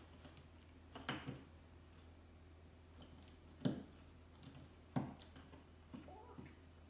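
Plastic LEGO bricks being handled and pressed together: a few separate sharp clicks about a second in, near four seconds and at five seconds, then a quick cluster near the end, over a faint steady low hum.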